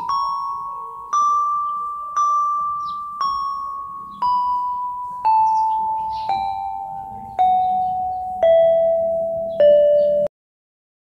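Yamaha PSR-32 electronic keyboard playing a slow scale one note at a time, about one note a second, each note struck and fading: two steps up, then stepping steadily down. The sound cuts off suddenly shortly before the end.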